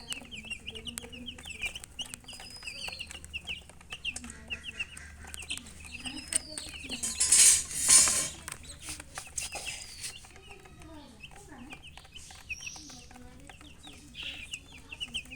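Chicks peeping in quick runs of short high notes while a hen clucks low and softly. A loud, rushing burst of noise rises and falls about seven to eight seconds in.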